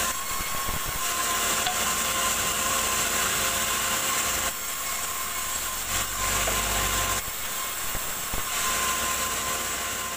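Sawmill band saw running and ripping wooden boards lengthwise into planks, the cutting hiss swelling and easing again and again as one board after another is fed through the blade.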